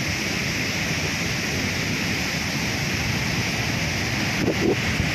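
Steady rush of rough surf and fast floodwater pouring into the sea, with wind buffeting the microphone.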